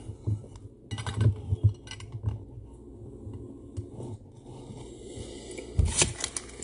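Hard plastic card holder handled and set into a display stand: scattered light clicks and taps, with a cluster of louder clacks near the end.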